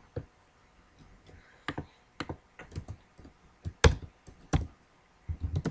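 Computer keyboard keystrokes: irregular, spaced-out taps, with one sharper key strike about four seconds in and quicker typing near the end.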